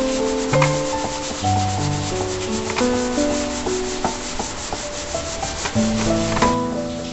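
Scouring pad scrubbing back and forth on a stained refrigerator shelf in quick, even strokes, working at stains that are tough to shift, over soft piano-like background music. The scrubbing stops about six and a half seconds in.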